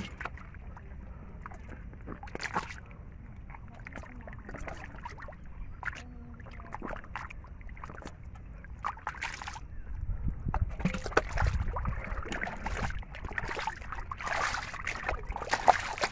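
Shallow muddy water splashing and sloshing as a steel bowl scoops and bails it, with scattered short wet splashes. The splashing grows busier and louder in the second half.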